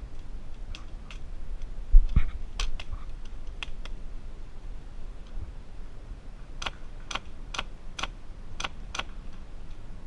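Airsoft guns firing single shots as a series of sharp clicks: a few scattered ones early, then six evenly spaced at about two a second. A low thump comes about two seconds in.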